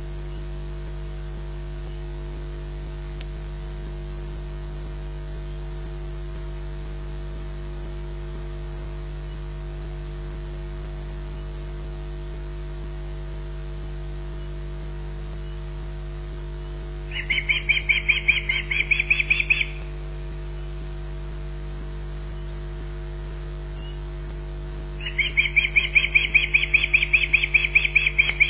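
Osprey alarm calls: two runs of rapid, repeated high chirps, a short run about two-thirds of the way in and a longer one near the end, a warning at corvids around the nest. A steady electrical mains hum runs underneath.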